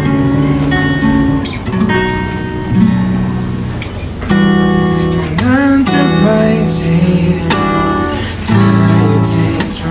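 Acoustic guitar strummed and picked as a song intro, with chords changing every second or so.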